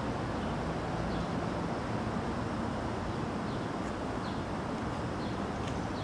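Steady outdoor background noise with a few faint, short high chirps.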